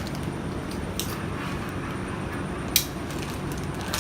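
Hydraulic hose crimper's electric pump running with a steady hum, switched on and ready to crimp. A sharp click sounds about three quarters of the way in, with fainter clicks earlier.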